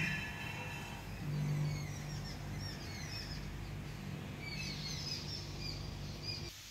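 Small birds chirping and calling, many short chirps, over a steady low hum; the sound drops away abruptly near the end.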